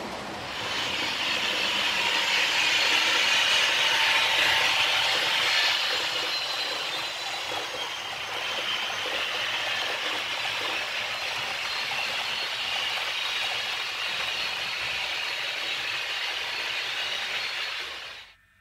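H0-scale model train, a long rake of Touristik coaches, rolling across a model truss arch bridge: a steady rushing rattle of small wheels on the rails with a faint high whine over it. It swells about a second in, is loudest for the next few seconds, then runs evenly and cuts off suddenly near the end.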